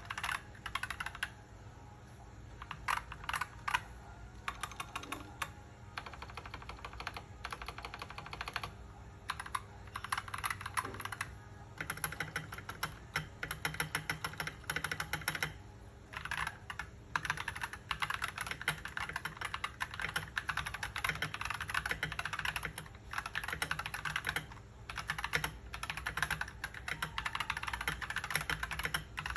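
Akko 3098 mechanical keyboard with stock Akko CS Ocean Blue tactile switches and double-shot PBT ASA-profile keycaps being typed on. Scattered keystrokes at first, then fast continuous typing for most of the rest, broken by a couple of short pauses.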